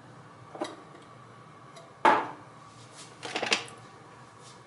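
A few knocks and clinks of kitchen things being handled while sweetening a mug of coffee: a faint click, then one sharp knock with a brief ring about two seconds in, and a quick cluster of clicks about a second later.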